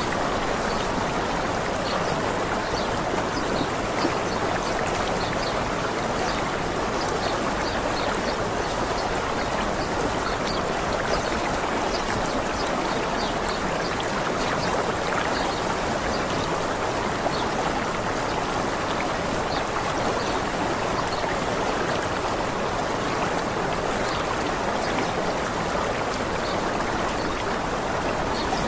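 Steady rush of falling water from a waterfall, with faint, short, high bird chirps scattered throughout.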